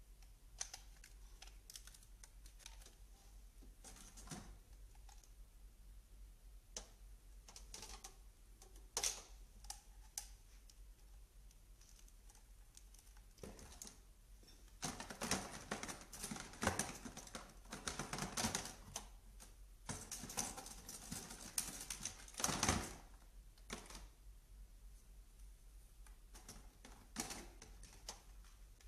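Faint, irregular plastic clicks and rattles of a hair styling kit's parts being handled, with the styler's attachments picked out of their box and fitted. The clicks come thickest and loudest in the middle stretch.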